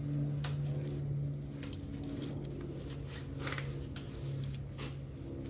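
Scattered clicks and rattles of metal parts being gripped and twisted as a bicycle wheel fitting is worked loose, over a steady low hum.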